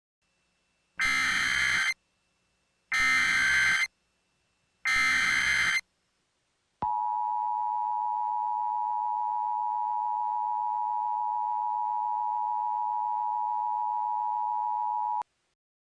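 Emergency Alert System tones: three bursts of digital SAME header data noise, each about a second long with a second of silence between, then the steady two-tone EAS attention signal held for about eight seconds before cutting off. The tones herald a new emergency alert, here a tornado warning.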